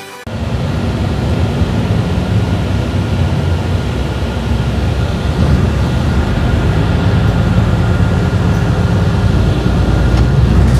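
Steady low rumble of a city transit vehicle moving along, heard from inside its cabin.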